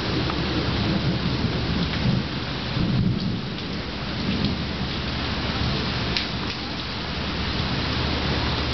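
A steady rushing hiss with deeper rumbling surges about two to three seconds in.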